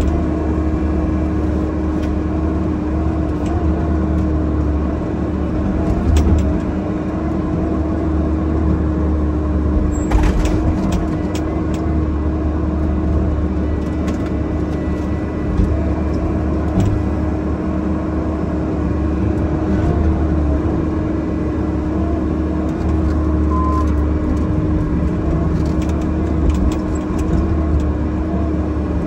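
Bobcat E50 mini excavator's diesel engine running steadily with a constant hum while its hydraulics work the boom, heard from inside the cab. Occasional clicks and knocks sound over it, with a cluster about ten seconds in.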